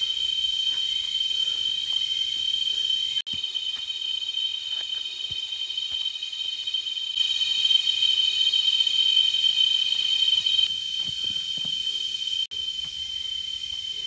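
A chorus of forest insects keeps up a steady, shrill, high-pitched drone. It grows louder for a few seconds in the middle and drops out twice for an instant.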